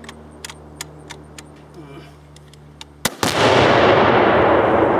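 A rifle shot about three seconds in, followed at once by the loud blast of an exploding target, which keeps rumbling on. Before it, a few light clicks over a low steady hum.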